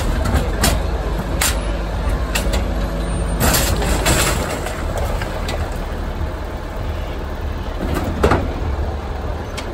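Garbage truck's engine running with a steady low rumble, broken by scattered knocks and a short burst of hissing air about three and a half seconds in. A louder knock comes near the end.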